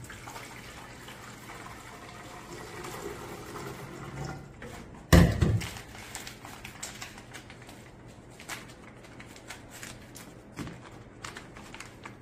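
Water pouring from a plastic measuring jug into a plastic calf feeding bottle, then a loud knock about five seconds in as the jug is set down on the counter. After that, scattered crinkles and clicks of a paper bag being handled.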